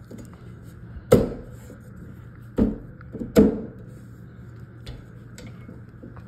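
Parts of a figure being handled and fitted together during assembly: three loud knocks, about a second in, at two and a half seconds and just after three seconds, over a steady hum.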